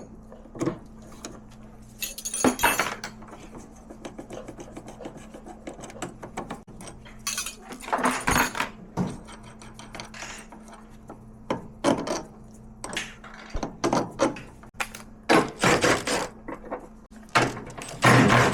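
Metal hand tools clinking and clattering in irregular bursts as a car battery is disconnected and unbolted for removal, over a faint steady hum.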